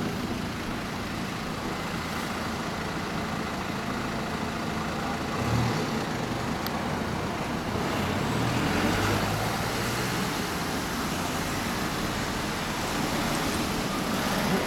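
Kawasaki Z1000's 1043 cc inline-four idling through an LCI Parts aftermarket exhaust, its note rising briefly about five and a half seconds in and again around nine seconds.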